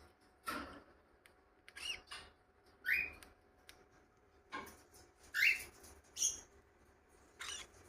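Cockatiel chick giving short, squawky chirps, about seven of them at uneven intervals, each with a quick bend in pitch.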